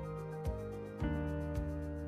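Background music with a steady beat, about two beats a second, over sustained notes.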